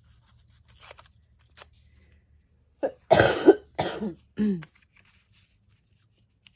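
A person coughing, a quick fit of about three coughs about three seconds in. Faint rustling of paper being handled comes before it.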